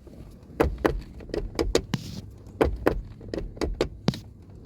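Door check strap on a 2012 Chevrolet Volt door clicking and popping as the door is swung, a quick series of sharp clicks coming in several bursts. The owner takes it to mean that the strap is sticking or its pin has broken loose.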